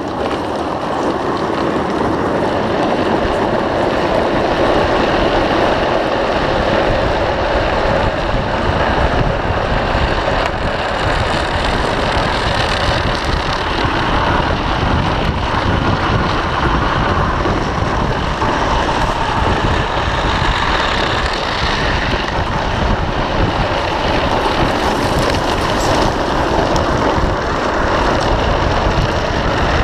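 Drift trike's PVC-sleeved rear wheels rolling and sliding on asphalt: a steady, loud, noisy scraping hiss that lasts throughout.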